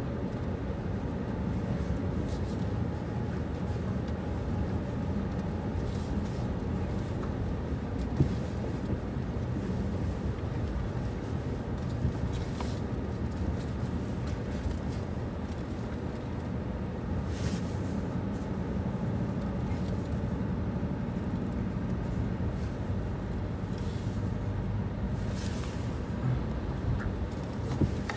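Steady low rumble of a car's engine and tyres heard from inside the cabin as it drives through a flooded street, with a few brief faint hisses.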